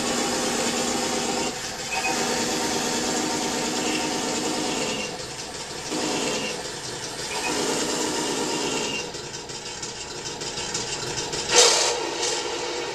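Simulated tank engine sound effect from an ASP sound unit in an RC tank, played through the tank's small speaker: the engine idles and revs up and down in several swells. A sharp crack sounds near the end.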